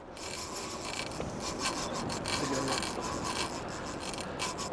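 Fishing reel being cranked: a continuous rough, rasping mechanical whirr.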